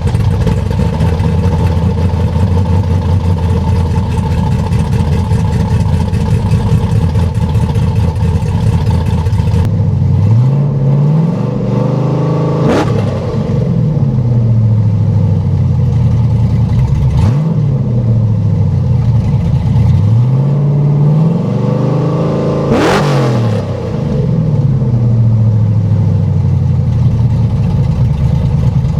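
Straight-piped, cammed LS V8 in a Chevy Silverado running while still warming up after a cold start. It idles steadily for about ten seconds, then is slowly revved up and back down twice, peaking about 13 and 23 seconds in.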